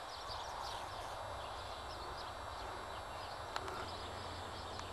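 Quiet countryside ambience: a steady hiss with many short, high chirps of small birds scattered throughout, and a single sharp click about three and a half seconds in.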